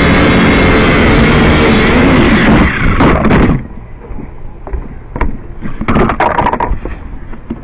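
Syma X5C quadcopter's propellers whirring loudly, heard through its onboard camera, then a few knocks about three seconds in as it hits something. The motors cut off suddenly, and only scattered light knocks and rattles follow.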